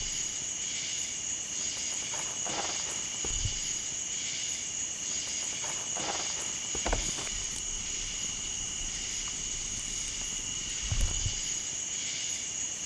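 Steady chorus of night insects with a high, gently pulsing drone. There are a few scattered crackles and pops from a wood campfire, and two low thumps, the louder one about eleven seconds in.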